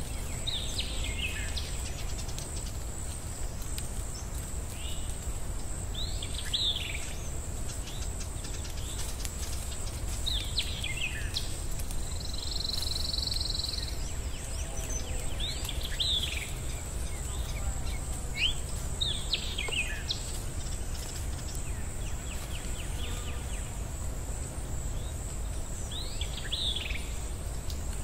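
Birds calling over a steady low rumble and high hiss: short downward-sweeping chirps every few seconds, with a brief buzzing call about halfway through.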